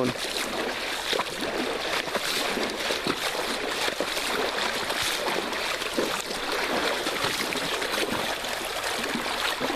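Creek water running and trickling, with scattered short splashes.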